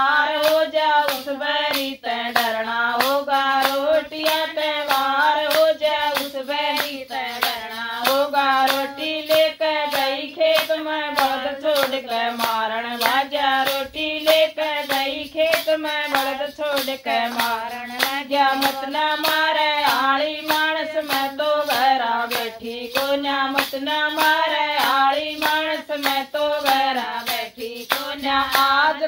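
A woman singing a Haryanvi folk song in one unbroken melodic line, with steady rhythmic hand clapping keeping time.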